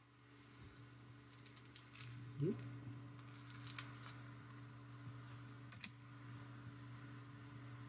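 Faint clicks and taps of a stack of cardboard 1987 Topps baseball cards being handled in the hands. A low steady hum sets in about two seconds in, with a brief rising squeak just after it.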